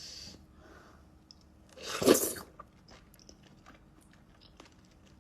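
Close-up chewing of salmon sashimi: soft, wet mouth sounds with small clicks, and one louder burst about two seconds in.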